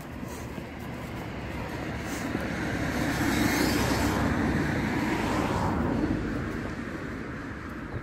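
A vehicle passing by: a broad rushing noise that builds, is loudest about three to six seconds in, then fades away.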